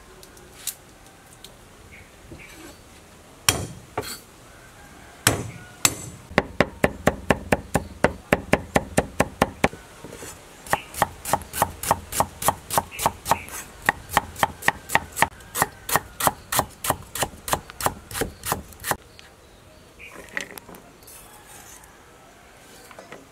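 Knife chopping garlic and ginger on a wooden chopping board. A few single strikes come first, then rapid, even chopping at about four strokes a second for some thirteen seconds, with a brief pause about ten seconds in.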